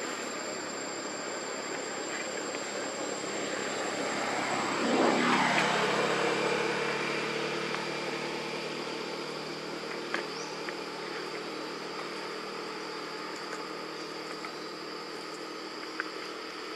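An engine passes by: it grows louder over about five seconds, its pitch drops as it goes past, and its hum then fades slowly. A steady high insect drone runs underneath.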